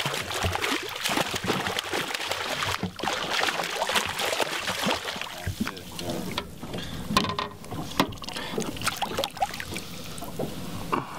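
A hooked cutthroat trout thrashing and splashing hard at the water's surface beside a boat for the first several seconds. It then gives way to lighter splashes and drips as the fish is lifted on the line and grabbed by hand.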